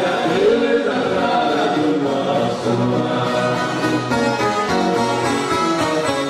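An orchestra of violas caipiras playing a sertanejo caipira song, with men's and women's voices singing together as a choir.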